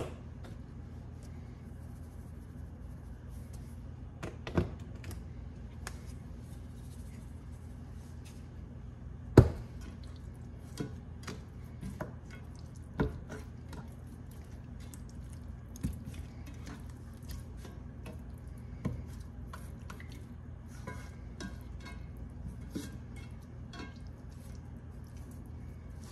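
Raw chicken legs being turned over by hand in a cast iron skillet: soft handling with scattered knocks of meat and bone against the pan, the loudest about nine seconds in, over a steady low hum.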